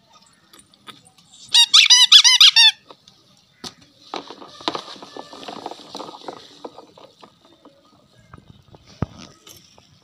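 Yellow rubber duck squeezed quickly about eight times, giving a run of loud, high squeaks. A few seconds later a hand swishes and splashes softly through bubble-bath foam and water.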